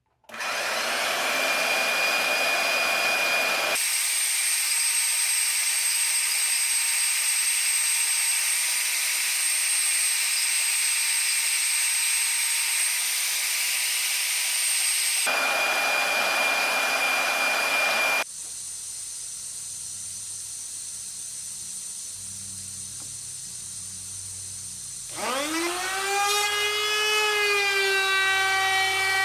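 Power tools at work in a series of short clips with abrupt cuts between them: stretches of steady, loud whirring tool noise, then near the end a motor spinning up, its whine rising in pitch and levelling off.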